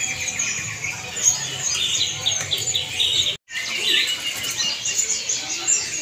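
A dense chorus of many caged small songbirds chirping and twittering together, lots of different calls overlapping. The sound cuts out completely for an instant a little past halfway, then the chirping carries on.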